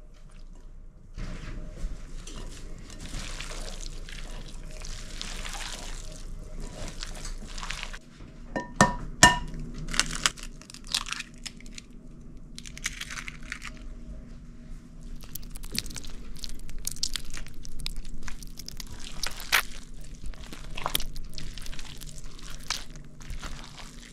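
Meatloaf mix being made in a glass bowl: bread cubes and milk mixture going in onto ground turkey and chopped vegetables, a few sharp knocks about nine seconds in as an egg is cracked, then gloved hands squishing and kneading the wet ground-turkey mixture.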